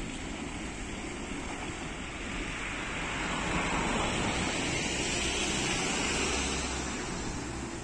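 Bus engine and tyre noise on a steep hill road, swelling as the bus passes close by about halfway through and then drawing away, over a low steady engine drone.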